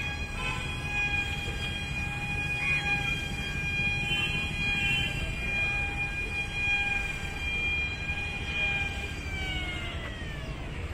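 Small electric propeller motor of a toy glider whining steadily in flight, over a low rumble. Near the end the whine slides down in pitch as the motor's timed 15-second run ends and it winds down.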